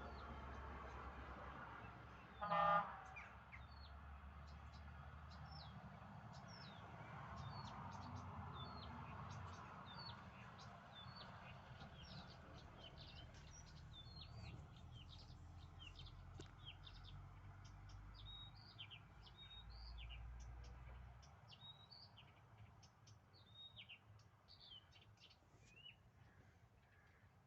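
Small birds chirping, many short high notes in quick succession. A little over two seconds in, one brief, much louder honk-like call stands out.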